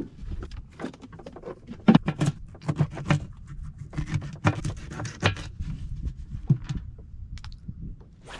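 Knife chopping baitfish into chunks on a cutting board, irregular knocks and taps.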